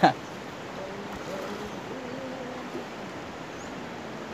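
Steady rush of a shallow, rocky river's water flowing, with faint distant voices in the first half. A loud voice breaks off right at the start.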